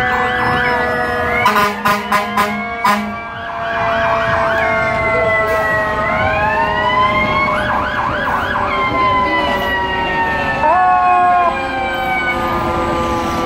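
Several emergency-vehicle sirens sounding together, their wails and yelps overlapping throughout. About one and a half seconds in comes a quick run of five short, loud blasts.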